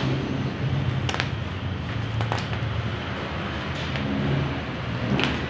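A few short, sharp plastic clicks and knocks as a Mini Cooper's plastic wiper cowl panel is handled and fitted, over a steady low mechanical hum.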